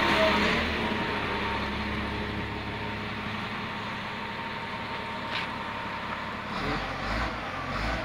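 Diesel engine of a Caterpillar 950H wheel loader running steadily at idle, growing somewhat quieter over the first few seconds, with a few low thumps near the end.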